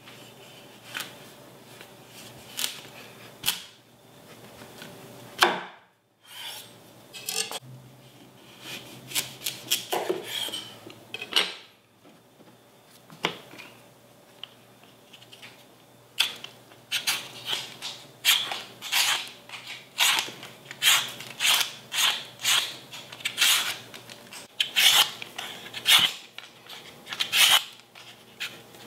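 A chef's knife cutting through a butternut squash on a wooden cutting board, with scrapes and a few sharp knocks of the blade. Then, from about halfway, a vegetable peeler stripping the squash's skin in quick, even scraping strokes, about two a second.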